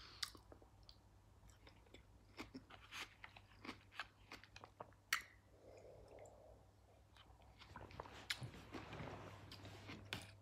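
Quiet mouth sounds of eating strawberries: chewing with scattered small wet clicks and crunches. About six seconds in comes a soft swallowing sound as a drink is taken from a plastic cup.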